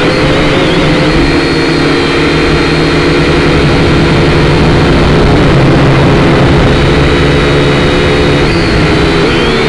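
Syma X5C quadcopter's four motors and propellers buzzing steadily in flight, heard up close through its onboard camera: several whining tones over a rush of prop-wash noise, shifting slightly in pitch near the end as the throttle changes.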